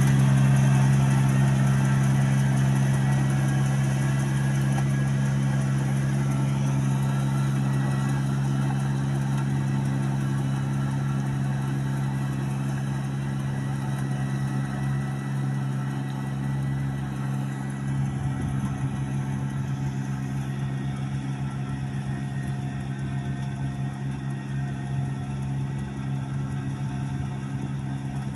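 Ride-on rice transplanter's engine running steadily while it plants rows of rice seedlings, growing gradually fainter as the machine moves away.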